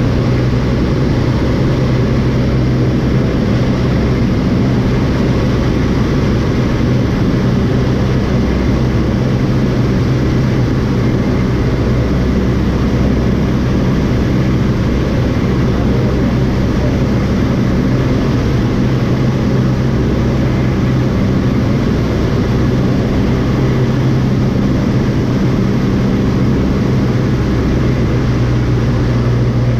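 A light aeroplane's piston engine and propeller running steadily at a constant speed, loud and unchanging throughout.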